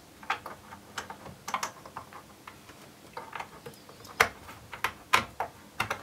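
Scattered small clicks and taps as SATA power and data cable connectors are handled and pushed onto the back of a 2.5-inch SSD in a metal drive bay. The loudest clicks come about four and five seconds in.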